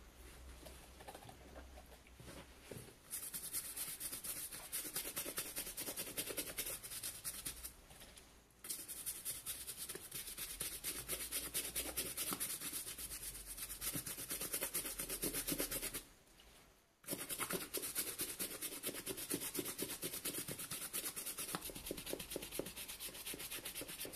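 Small brush scrubbing a suede boot's upper through soapy cleaning foam: fast, scratchy back-and-forth strokes, starting softly and breaking off briefly twice, the second time about two-thirds of the way through.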